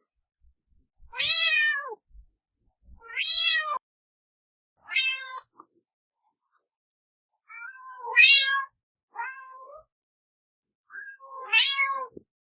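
Domestic cat meowing, six separate meows one to two seconds apart, each rising and then falling in pitch.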